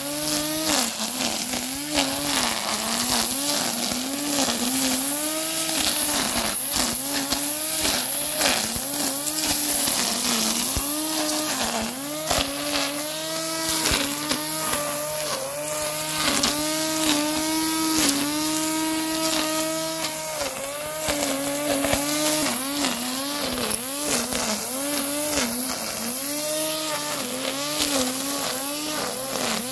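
Parkside PRT 550 A3 550-watt electric grass trimmer running as it cuts grass and weeds. Its motor whine dips in pitch again and again and recovers, with many sharp ticks of the twin nylon line striking stems.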